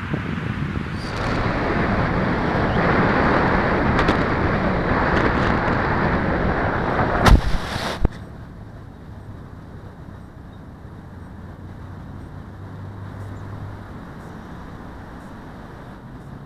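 Air rushing over a small RC model plane's onboard camera as the scratch-built depron pusher glides in to land. A sharp knock about seven seconds in as it touches down, a second bump as it stops in the grass, then only a faint steady hiss.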